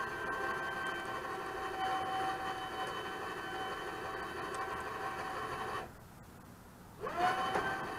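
Reese Towpower 2000 lb electric winch running under load with a steady whine as it pulls a barbecue smoker trailer up a ramp. It stops about six seconds in and restarts a second later, its pitch rising as the motor spins back up.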